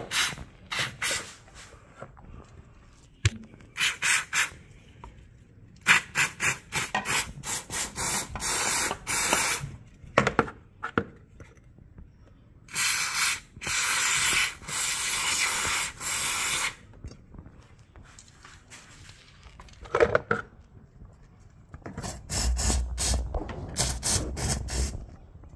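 Aerosol throttle body cleaner spraying through its straw in repeated short hissing bursts, with one longer spray of about four seconds near the middle, cleaning a throttle body.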